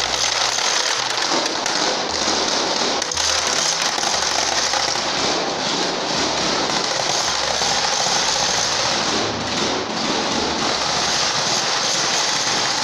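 Several large wooden Easter rattles (raglje) being sounded together in a continuous, dense, loud clatter. They are rattled in place of the church bells, which are silent from Holy Thursday evening.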